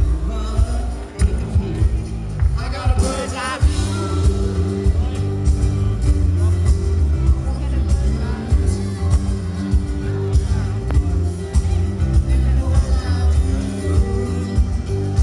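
Rock/pop music with a heavy bass beat and some singing.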